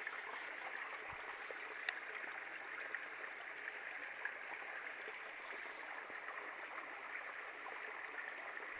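Steady rush of running water, like a stream, with a soft low thump about a second in and a faint click shortly after.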